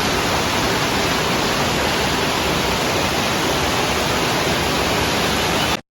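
Gale-force storm wind and heavy rain blowing on the microphone: a steady, loud rush of noise that cuts off suddenly near the end.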